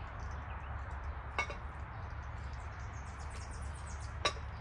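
Two sharp knocks, about three seconds apart, over a steady low hum and faint hiss.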